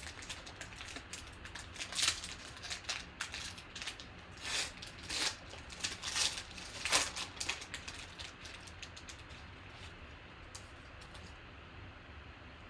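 Foil-lined wrapper of a trading-card pack being torn open and crinkled by hand, a run of irregular crackles and rips over the first seven seconds or so. After that there are only faint rustles of the cards being handled.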